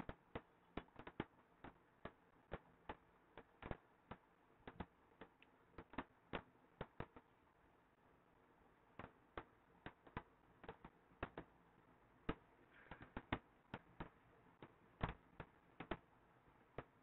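Irregular light clicks and taps, a few a second, with a short pause near the middle.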